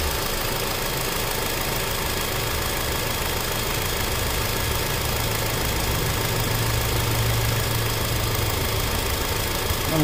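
Honda Accord's 2.4 L four-cylinder engine idling steadily, heard under the open hood. The AC is switched on but the compressor is not engaging.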